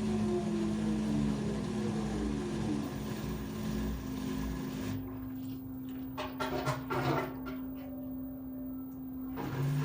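LG 13 kg washer-dryer drum motor running down: its tones fall steadily in pitch over the first three seconds as the drum slows from spin, leaving a steady hum. A few short rattles come about six to seven seconds in.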